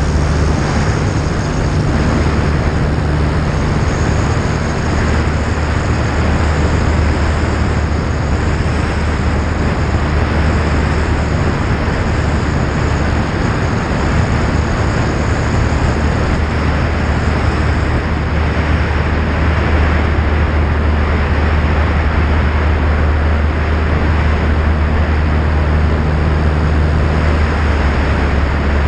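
Jabiru J160's four-cylinder Jabiru 2200 engine and propeller droning steadily in flight, with heavy wind rush over the externally mounted camera.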